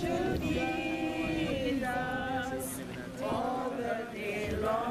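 A group of men and women singing a hymn together without accompaniment, in long held notes.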